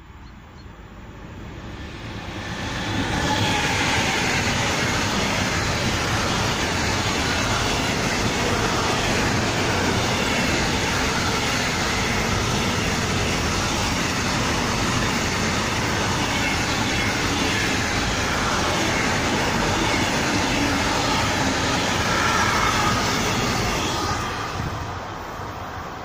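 A freight train carrying lorry trailers passes close by with a loud, steady rumble and rattle of wheels and wagons. The sound builds over the first three seconds as the train arrives, holds, and falls away near the end.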